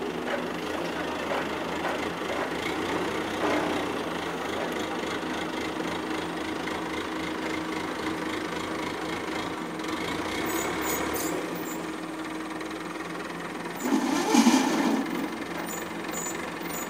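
Diesel engine of an ACE mobile crane running steadily under load as it hoists a large steel tank section. A brief, louder sound breaks in about fourteen seconds in.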